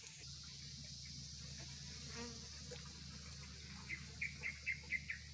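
Asian honey bees (Apis cerana) buzzing faintly at a wooden hive box, over a steady high hiss. Near the end come about six short high chirps in quick succession, about four a second.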